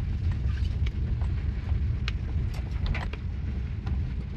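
Car cabin while driving on a wet road: a steady low rumble of engine and tyres, with scattered light ticks and taps.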